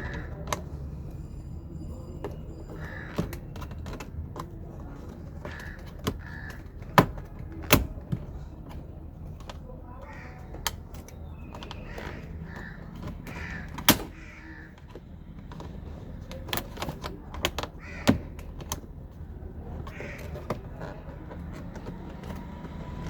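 Irregular sharp plastic clicks and snaps from a trim removal tool prying the clips of a Kia Sportage's long dashboard trim loose, with softer tapping and scraping of the tool against the dash between them.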